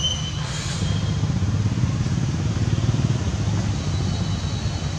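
A motor vehicle engine running off-screen: a low, steady rumble.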